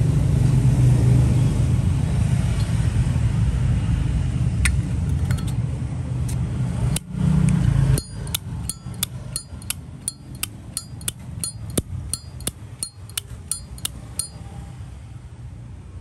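Zippo windproof lighter lid flicked open and snapped shut over and over: about twenty sharp metallic clicks with a bright ringing chime, roughly three a second, stopping about two seconds before the end. Before them, for the first half, a loud low rumble of road traffic with a few scattered clicks.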